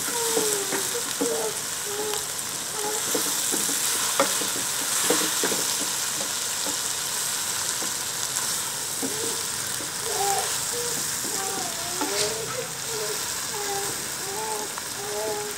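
Beef and masala frying in a pot, a steady sizzle while a spoon stirs it, with a few sharp knocks of the spoon against the pot: the bhuna stage, the curry being fried down with its spices.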